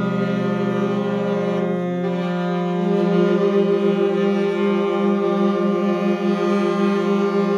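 Four tenor saxophones holding long, sustained notes together as a dense drone. About two seconds in, the lowest note drops away, and from then on the held tones beat against each other in a steady wavering pulse.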